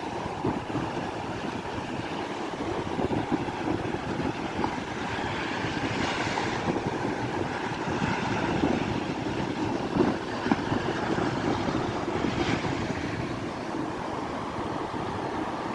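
Wind buffeting the microphone over the steady wash of surf on a beach, with two louder, hissier washes of a wave about six and twelve seconds in.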